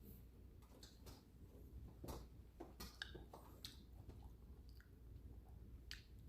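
Near silence: quiet room tone with faint, scattered small clicks and quiet chewing sounds of someone eating.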